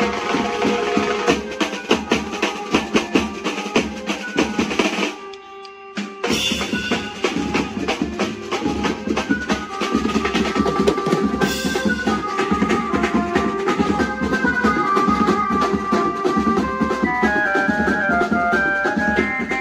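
Band music: fast, dense drumming with a keyboard melody over it. The drums drop out briefly about five seconds in, then resume, and the melody stands out more clearly in the second half.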